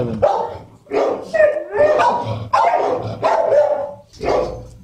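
Dogs barking in a rapid run of short barks, with a brief lull about four seconds in.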